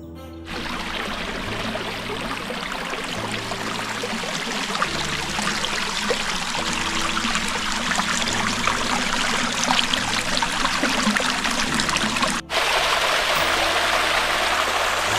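Running water from a jungle stream, a steady rushing hiss, with a brief break near the end where the sound cuts and resumes.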